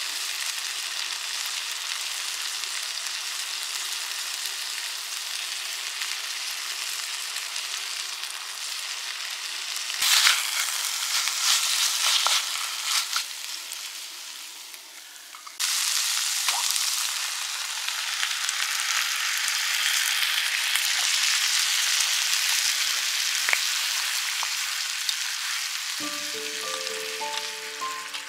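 Meat strips and cherry tomatoes sizzling in a small frying pan on a gas-canister camping stove, stirred with a wooden spatula that scrapes and clicks against the pan about ten seconds in. Music comes in near the end.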